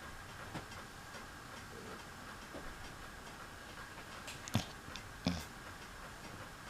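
Quiet room with a faint steady hum and a few scattered sharp clicks, the two loudest less than a second apart near the end.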